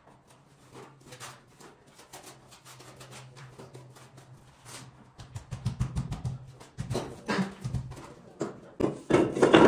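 Stone cladding work: a trowel and stones knocking and scraping in a run of light taps over a steady low hum. The handling gets louder and heavier from about halfway, with the loudest scraping and knocking near the end.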